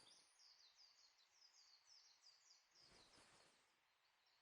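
Near silence, with a faint, rapid run of high chirps in the background, several a second.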